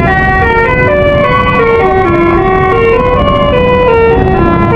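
A minibus's musical horn playing a fast tune of short stepped notes that go up and down in pitch, over a low rumble.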